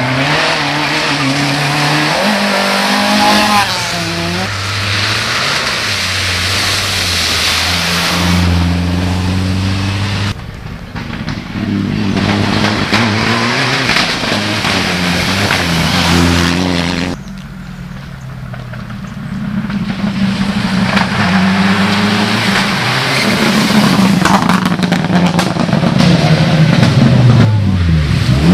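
Rally cars driven hard one after another on a wet, muddy stage: a Mitsubishi Lancer Evolution and a Ford Focus rally car among them, their engines revving up and falling back through gear changes, with tyre and gravel noise. The sound changes abruptly twice, about ten and seventeen seconds in, as one car gives way to the next, and the last car grows louder near the end.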